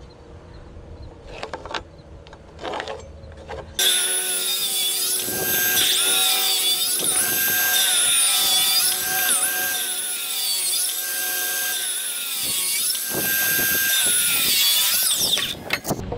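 A cordless circular saw cuts a row of closely spaced kerfs across a wooden timber beam to clear out a notch for a loft joist. It starts about four seconds in, after a few light knocks. Its motor whine dips in pitch again and again as the blade bites on each pass, and it stops just before the end.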